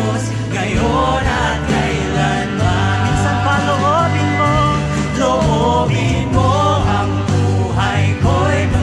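Live worship band playing a Tagalog praise song: several voices singing a melody over electric guitars, acoustic guitar and drums.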